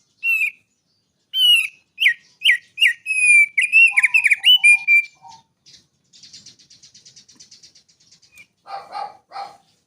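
A small songbird singing: runs of sharp, falling whistled chirps, then a fast buzzy trill about six seconds in, and two or three lower, harsher notes near the end.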